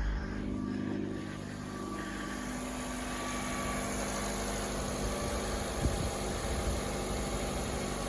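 Car engine idling steadily, with a couple of faint knocks about six seconds in.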